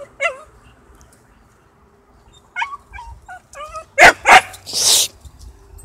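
Dogs scuffling: a few high-pitched yips and yelps, then two loud barks about four seconds in, followed by a harsh, noisy snarl.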